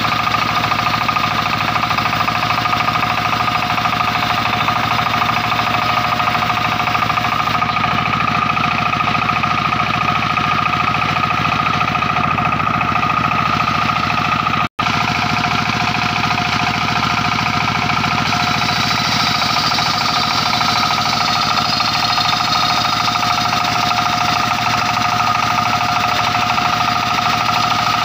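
Engine-driven circular sawmill running steadily, a constant high whine from the spinning blade over a fast engine chatter. The sound drops out for an instant about halfway through.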